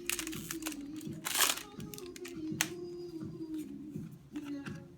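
Rustling and crinkling of a Magic: The Gathering booster pack and its cards being handled and opened, in short clicks and rustles with a louder rustle about a second and a half in, over a steady low hum.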